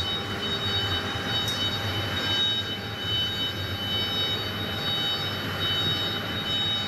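Steady drone of workshop machinery, with a thin, high, steady whine running through it.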